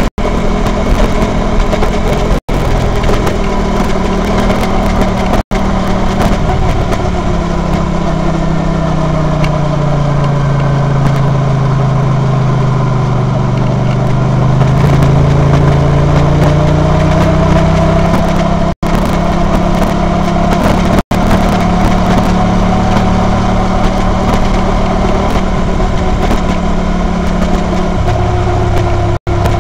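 Honda VT250F's 250 cc V-twin engine running as the motorcycle rides along. The engine note falls steadily for several seconds as the bike slows, then rises again as it picks up speed. The sound drops out abruptly for an instant several times.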